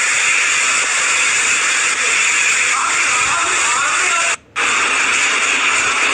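Cyclone wind and driving rain as a loud, steady rushing hiss, with faint voices underneath. It cuts out for a moment about four and a half seconds in.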